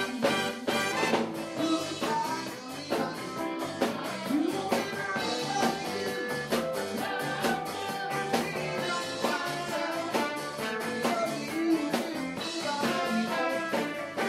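Live blues band playing with electric guitar, horns and drums on a steady beat, with some singing.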